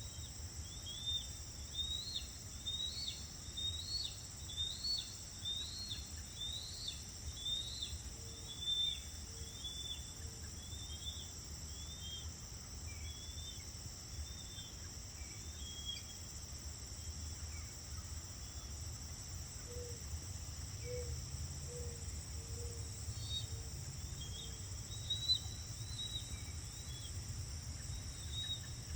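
Evening insect chorus: crickets trilling steadily and high. Over it a bird gives a series of short, down-slurred chirps, about one to two a second, for the first ten seconds and again near the end, above a low rumble.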